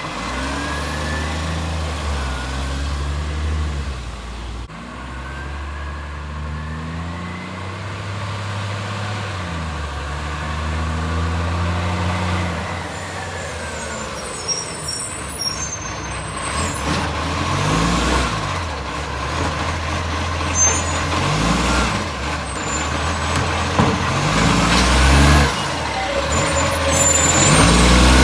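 Garbage truck's diesel engine revving up and down several times, its exhaust leaking. The revs rise higher and louder in the second half.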